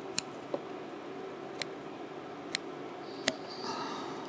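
Small fly-tying scissors snipping spun deer hair, with about five sharp snips spread unevenly, trimming a deer-hair ball on the hook into shape.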